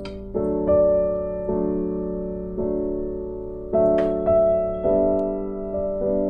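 Background piano music: slow, sustained chords, a new one struck every second or so and left to ring and fade.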